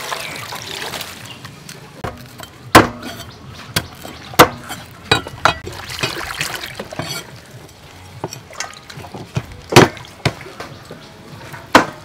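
Water poured from a plastic dipper over vegetables in a metal basin as they are rinsed, splashing near the start and again around the middle. A few sharp knocks are heard in between.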